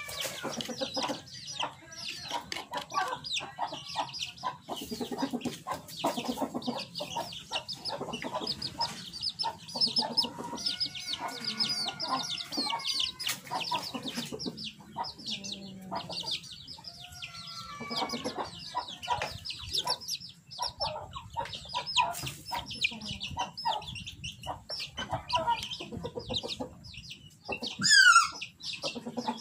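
Chickens clucking and chicks peeping without a break. A rooster gives two long crows, about a third and two-thirds of the way through, and there is a loud squawk near the end.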